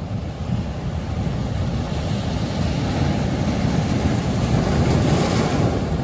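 Ocean waves breaking and washing over black lava boulders on a rocky shore. The surf builds over several seconds to a loud crash with hissing spray near the end.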